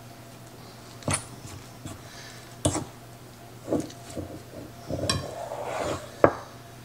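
A spoon stirring buttermilk into flour for biscuit dough in a mixing bowl, knocking against the bowl about five times, with scraping and squishing of the dough in between, longest just after the fourth knock.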